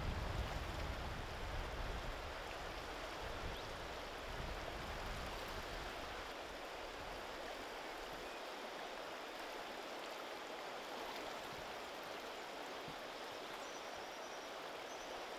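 Steady rushing of river water flowing past, with a low rumble underneath that fades out over the first half.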